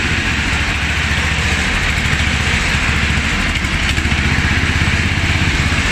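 17.5 hp engine of a homemade snowblower running steadily at an even speed.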